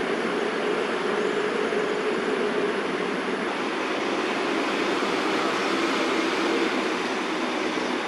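Steady rushing hum of distant city traffic, continuous and even, with a faint low drone running under it.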